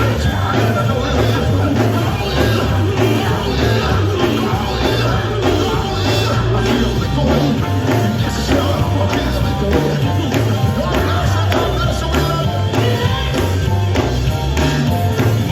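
Live gospel band playing loudly, with drums, bass and singing.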